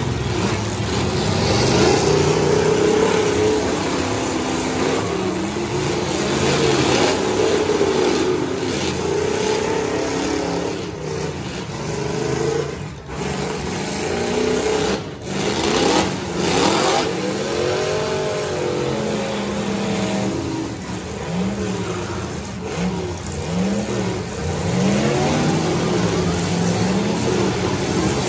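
Engines of several demolition derby trucks revving up and falling back again and again, overlapping one another.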